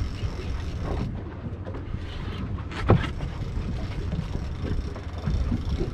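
Wind buffeting the microphone on a boat at sea, a steady low rumble, with a single sharp knock about three seconds in.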